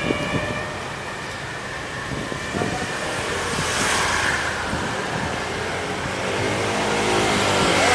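Busy street traffic: motorbike and scooter engines passing by, swelling and fading as each goes past.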